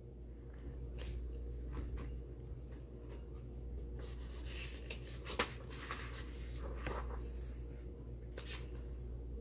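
Faint rustling and a few soft clicks of a paperback picture book's pages being handled, over a steady low electrical hum.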